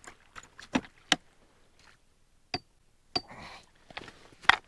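A few separate sharp clicks and knocks, about five in all and unevenly spaced, as a freshly landed pike and the lure are handled in and against a kayak.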